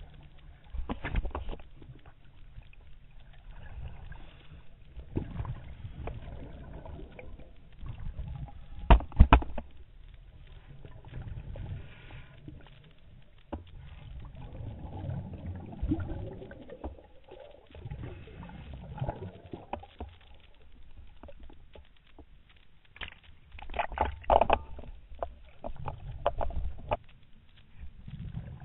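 Scuba breathing heard underwater: a regulator's hiss on each inhale and a rush of bubbles on each exhale, coming in irregular surges every few seconds. A few sharp knocks, the loudest about nine seconds in.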